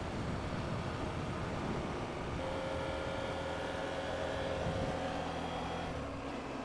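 KTM 790's parallel-twin engine running while the motorcycle rides along, over a steady rush of wind and road noise. The engine note shifts up and down in the first couple of seconds, holds steady through the middle, then eases off near the end.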